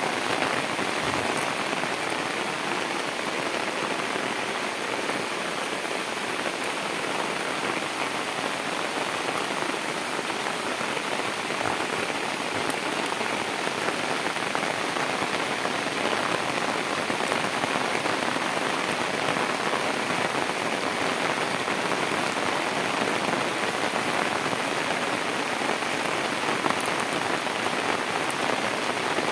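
Steady rain falling on floodwater, an even hiss with no let-up.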